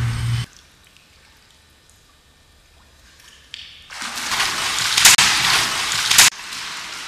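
Swimming-pool water splashing and sloshing as a person thrashes up out of it, starting about four seconds in after a quiet stretch, with two sharper, louder splashes about a second apart. A low steady hum cuts off half a second in.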